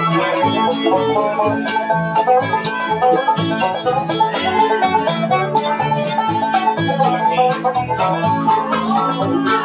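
Acoustic bluegrass band playing live: quick plucked-string picking over strummed acoustic guitar, with fiddle and upright bass notes on the beat.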